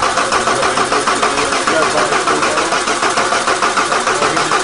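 The diesel engine of a mini tractor puller cranking over on its starter during a cold start, with even, rhythmic pulses; it has not yet caught and run.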